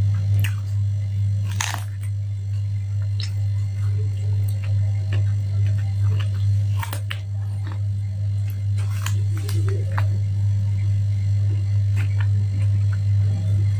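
Close-up biting and chewing of raw lalapan, a small round green eggplant dipped in sambal, with scattered crisp crunches and mouth clicks. A steady low hum runs underneath.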